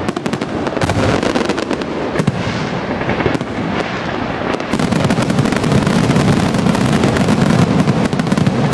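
Dense, continuous barrage of fireworks: rapid crackling and popping bursts overlapping with booms, as in a finale, loud and clipping the phone's microphone.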